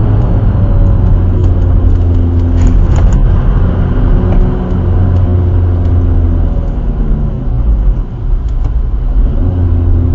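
Skoda Fabia vRS diesel engine heard from inside its own cabin while being driven on a race circuit: a steady drone whose pitch holds and then shifts, over heavy road and tyre rumble.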